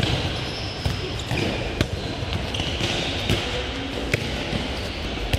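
Handballs being caught, thrown and bouncing on the sports-hall floor during passing practice: sharp, irregular smacks, about one a second, ringing in a large echoing hall.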